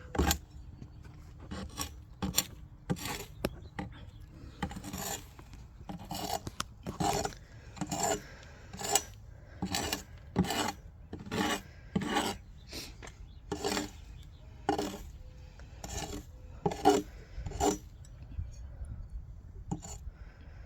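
Repeated rasping scrapes across beehive parts, about one stroke a second, stopping about three seconds from the end, as the dead colony's hive is scraped out during the autopsy.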